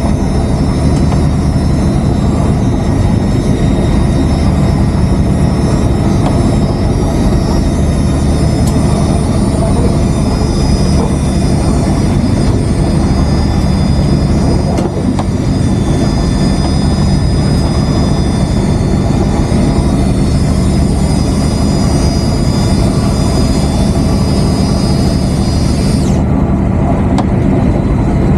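Boat engine running steadily, a loud, even, low drone. The higher hiss over it cuts off suddenly near the end.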